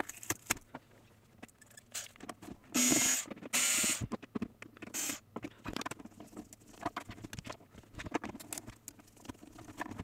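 Rubber feet being peeled off the plastic base of a Revitive circulation booster: two short tearing rips about three seconds in and a smaller one shortly after. Around them are small clicks and taps of a screwdriver undoing the screws beneath the feet, and the plastic case being handled.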